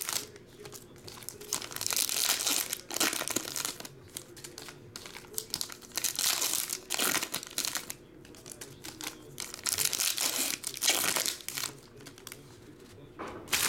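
Foil trading-card packs being torn open and crinkled by hand, in bursts of crinkling a few seconds apart.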